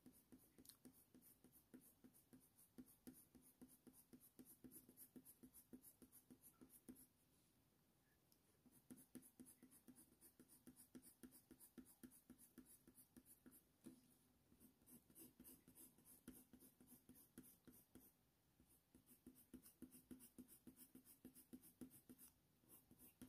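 Faber-Castell Polychromos colour pencil (Warm Grey III) scratching faintly on hot-press watercolour paper in quick, short strokes, as fur strands are drawn. The strokes stop for about two seconds in the middle, and briefly again later.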